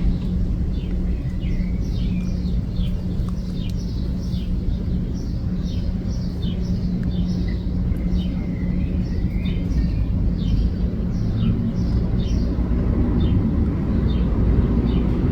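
Small birds chirping, many short quick falling notes repeated throughout, over a steady low rumble with a constant hum.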